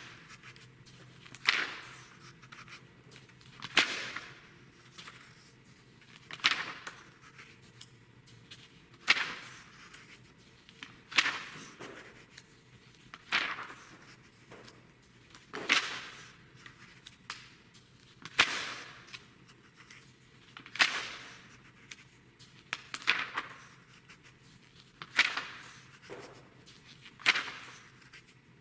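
Pages of a glossy magazine turned by hand one at a time, a sharp paper swish-and-flap about every two and a half seconds, a dozen times in all.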